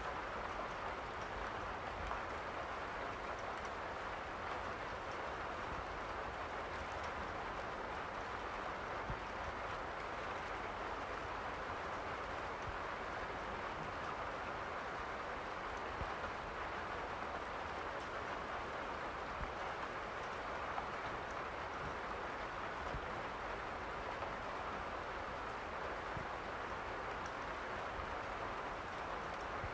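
Steady rain falling, an even hiss with a low rumble beneath it and a few faint ticks.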